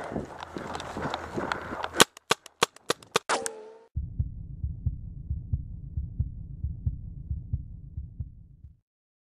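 Rustling through grass and a quick run of about seven sharp paintball shots, then, about four seconds in, the sound cuts abruptly to a low, steady, rhythmic heartbeat sound effect that stops shortly before the end.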